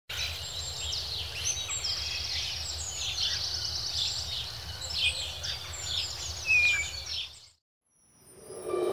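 Many birds chirping at once in a dense chorus of short, high chirps over a low rumble. The chorus cuts off about seven and a half seconds in, and music fades in near the end.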